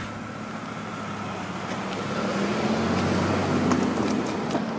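A car driving past, its engine and tyre noise swelling to a peak about three seconds in and then fading.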